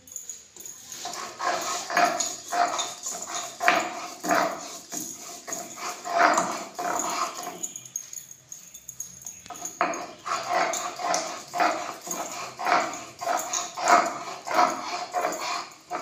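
Garlic and spices being ground on a flat grinding stone with a stone roller: gritty scraping in repeated strokes, with a lull about halfway through.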